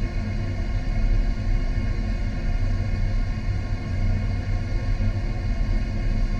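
Steady low rumble with a constant deep hum: water circulation in a salmon-rearing tank, heard through an underwater camera.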